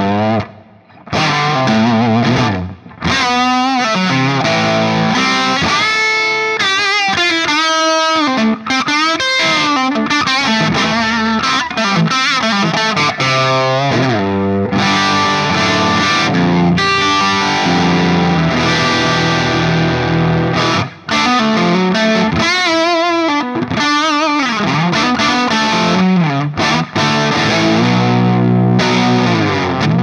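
Electric guitar, a Gibson Les Paul '58 Reissue with Burstbucker pickups, played through a Mesa/Boogie Dual Rectifier Roadster on Channel 2 in Brit mode, giving an overdriven rock tone, with added reverb. The sound is a Celestion Vintage 30 4x12 cabinet and Shure SM57 impulse response, not a miked speaker. The playing is continuous riffs and lead lines with some bent notes, and brief breaks about a second in and again about two-thirds through.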